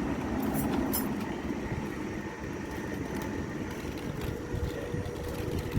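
A motor vehicle running with a steady low rumble, slightly louder in the first second.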